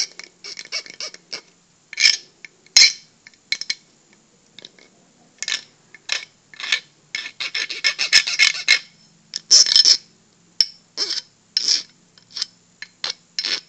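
Metal hand file scraping across the cut edges of an aluminum arrow shaft in short, uneven strokes with pauses between them, smoothing off the sharp burrs left by the hacksaw.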